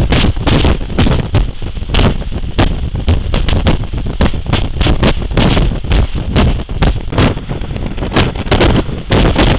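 Heavy wind buffeting on a camera microphone at a moving vehicle's open window: a steady low rumble broken by many sharp, irregular knocks.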